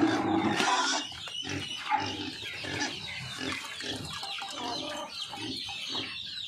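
Backyard pigs and chickens calling: a quick run of short grunts and clucks, about three a second, loudest in the first second.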